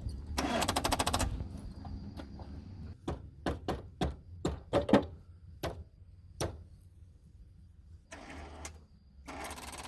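Rapid, even clicking from a Suzuki Samurai's starter on a flat battery, typical of solenoid chatter. It is followed by a series of sharp, irregular knocks as a rock is struck against the battery.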